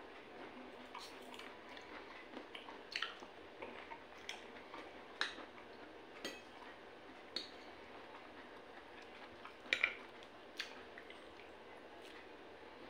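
Eating sounds: faint chewing and scattered sharp clicks of a metal fork and spoon against a plate, the loudest a quick double click near the end, over a steady faint hiss.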